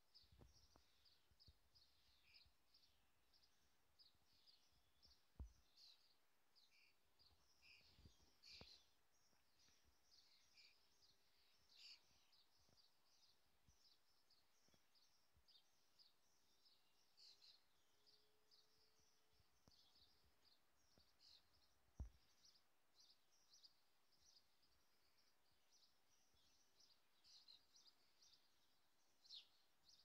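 Faint dawn chorus: many birds singing at once, a steady stream of short high chirps and trills. A few brief low thumps stand out, the loudest about two-thirds of the way through.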